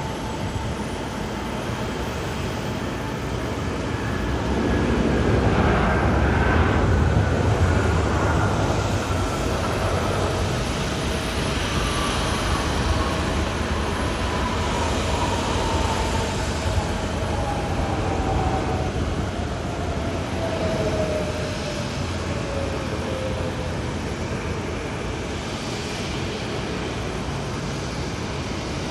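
Jet airliner passing, a low rumble that swells about five seconds in, with an engine whine that falls slowly in pitch over some twenty seconds as it goes by.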